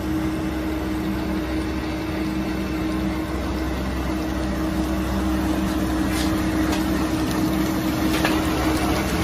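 Paper cup flexo printing and rotary die-cutting machine running steadily: a continuous mechanical hum with one steady drone and a lower tone that comes and goes. A few light clicks come in the second half.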